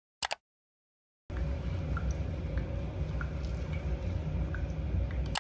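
Water running at a salon shampoo bowl as hair is washed: a steady rushing noise that starts about a second in, with a few faint ticks, after a single short click near the start.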